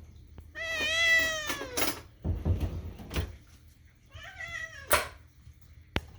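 Kitten meowing for food: a long meow about half a second in that rises and then falls in pitch, and a shorter, falling meow near the end. A few sharp clicks and a low knock come between the meows.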